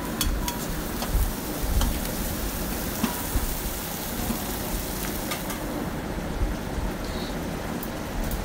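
Chopped beef kidneys frying in oil in a wok, a steady sizzle, while a metal spatula stirs them with now-and-then clicks and scrapes against the pan. This is the masala being fried (bhuna) after ginger-garlic paste went in.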